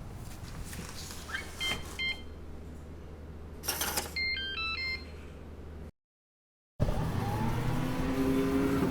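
Digital front-door lock: two keypad beeps, a short burst of mechanical noise from the latch, then the lock's quick electronic chime of stepped tones. After a brief gap a different, louder door sound with low steady tones begins.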